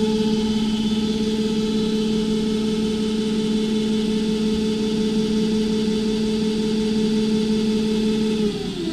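Electric drive of a SAR400 20-tonne self-aligning welding rotator running at a steady speed with a steady hum; about 8.5 seconds in it winds down, its pitch falling, as the drive is switched off.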